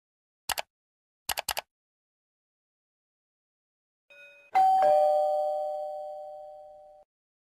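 Two quick clicks, then three more, followed a few seconds later by a two-note ding-dong chime sound effect, a higher note then a lower one, ringing and fading out over about two and a half seconds.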